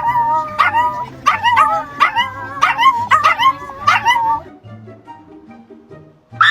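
A dog making odd, pitched yelping barks in a quick run, about three a second, that stop about four seconds in. Background music with low bass notes plays underneath.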